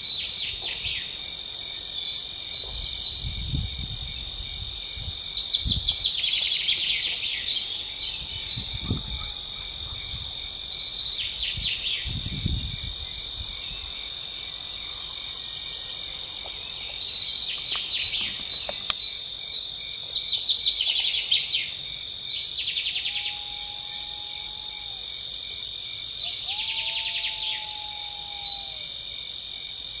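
Steady, high-pitched chorus of stridulating insects, with louder buzzing bursts every few seconds. A bird gives several drawn-out whistled notes, and a few low rumbles come in the first half.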